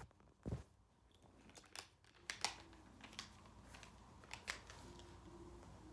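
Faint scattered clicks and taps of handling a phone and its headphones, over a quiet room.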